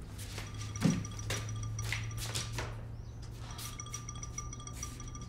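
Mobile phone ringing with a chiming ringtone that repeats in spells, with a single thump about a second in.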